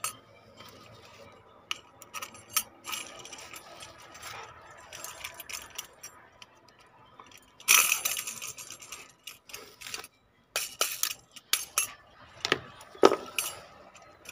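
Steel wheel spokes in the hub of a Honda CD 70 wheel clinking and jangling against each other as they are handled. Scattered metallic clicks run throughout, with a louder stretch of jangling a little past halfway.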